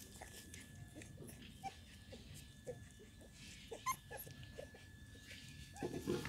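Pitbull puppies giving short, soft whimpers and squeaks while being picked up and handled.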